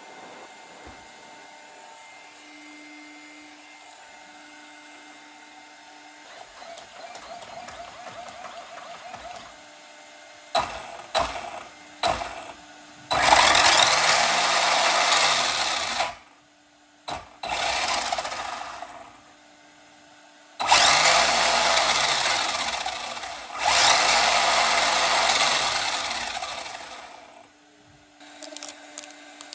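A 1/10-scale 4WD RC buggy's electric motor and drivetrain revved in four throttle bursts with the wheels spinning freely off the ground, the motor pitch rising and falling within each burst. A few short clicks come before the first burst.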